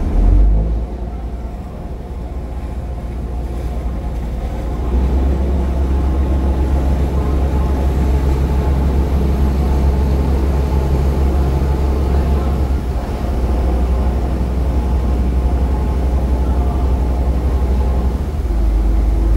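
Ferry's diesel engines running with a steady low drone. The drone grows louder about five seconds in, dips briefly in the middle and rises again near the end as the engine power changes while the ferry manoeuvres in the harbour.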